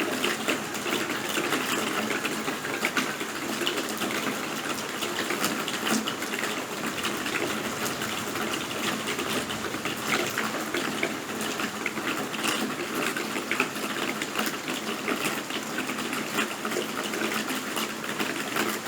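Steady rain, a dense, even hiss of many small drop ticks with no let-up.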